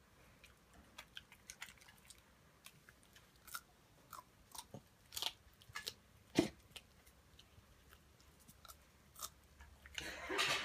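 Chihuahua chewing raw broccoli stems: irregular crisp crunches and bites, with a brief rustle near the end.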